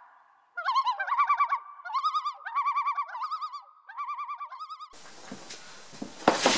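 Common loon tremolo calls: several bouts of a rapidly wavering, laughing call, stopping about five seconds in. Then room noise and a sharp knock near the end, as a plastic tote of tools is set down on a workbench.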